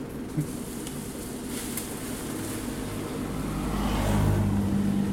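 A motor vehicle's engine running with a low, steady hum that grows louder about three seconds in.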